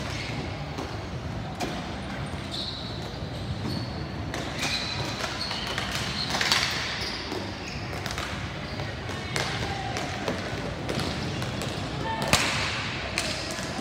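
Ball hockey play: plastic ball and sticks clacking and knocking against the floor and boards, with players' voices in the background. Two sharp cracks stand out, about six seconds in and near the end.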